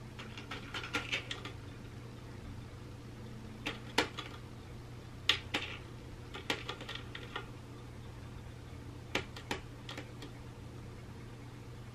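Dry cat food kibble rattling and clicking against the plastic tiers of a Catit Senses 2.0 Food Tree as a cat paws at it, in several short clusters of clicks a second or two apart.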